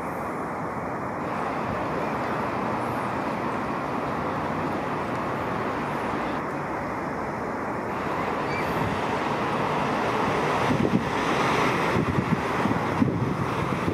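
Steady road traffic noise of a line of cars driving past, with no siren. Wind gusts on the microphone grow stronger over the last few seconds.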